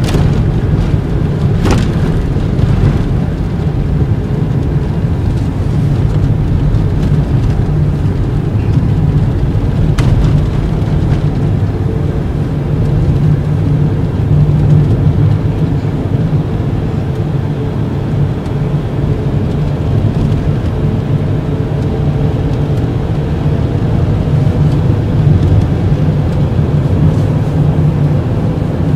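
VW T5 van driving on a snow-covered road on studded winter tyres: a steady low rumble of engine and tyre noise, with a couple of brief clicks.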